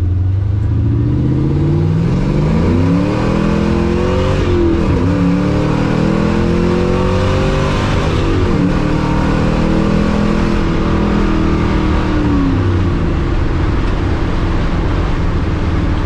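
LS-swapped V8 car with a T56 six-speed manual accelerating through the gears. The engine note climbs in pitch, drops at an upshift about five seconds in, climbs again and drops at a second upshift near nine seconds, then holds steady before the driver eases off.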